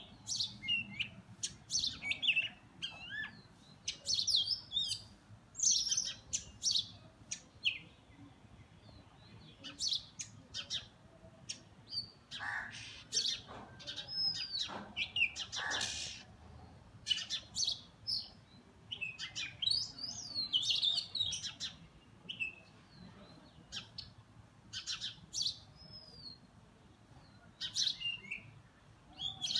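Oriental magpie-robins calling again and again: short, sharp chips and brief curling whistles, as two birds fight.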